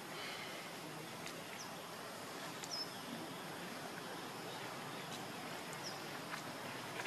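Steady outdoor background hiss with a few faint, short high chirps and soft clicks scattered through it.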